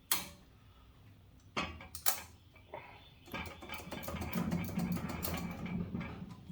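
Hand-tool work on metal: a few sharp separate clicks and knocks, then about three seconds of rapid clicking.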